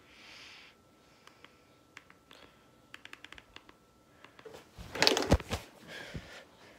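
Scattered light clicks, several in a quick run, over a faint steady high tone. About five seconds in comes a loud burst of rustling and knocking as the phone is handled and swung around.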